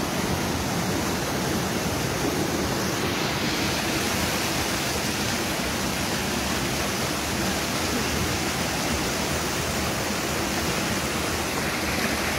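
Fast river water rushing over rocks in rapids: a steady, loud rush.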